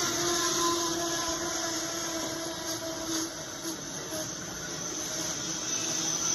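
Battery-powered LEGO train rolling past on plastic track: a steady whirring hiss with a humming tone from its electric motor, and a few faint clicks of wheels over the track joints.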